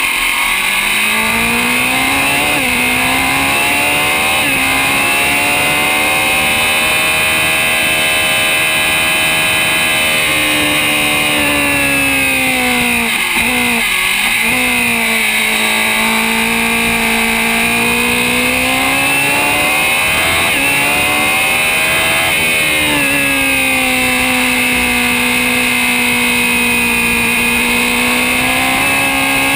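Open-wheel formula race car's engine heard onboard at racing speed. Its pitch climbs with quick drops at upshifts in the first few seconds, falls through downshifts about halfway through, then climbs again and holds high before dropping near the end.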